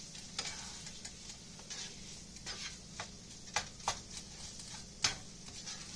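Cooked rice sizzling faintly in a frying pan while it is stirred, with a handful of irregular sharp scrapes and taps of the utensil against the pan.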